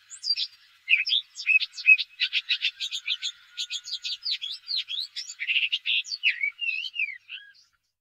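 Common whitethroat (Sylvia communis) singing: a rapid, unbroken jumble of short chirps and quick slurred notes, stopping abruptly near the end.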